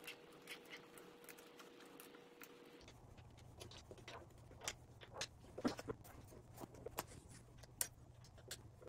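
Hex key clicking and tapping against the bolts of a handlebar stem clamp as the bolts are being tightened: faint, irregular small metallic clicks that come more often in the second half.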